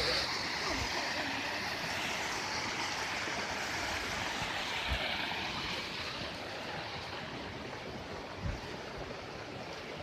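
Steady rush of stream water flowing over rocks, growing somewhat fainter in the second half. A couple of soft low thumps sound about halfway and near the end.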